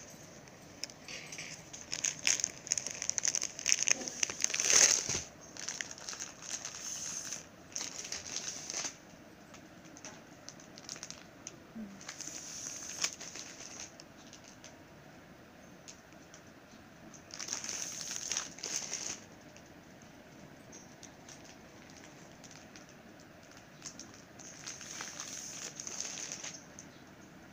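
Clear plastic saree packaging crinkling and rustling as the packs are handled, in bursts: a long stretch at the start, then two shorter ones later on.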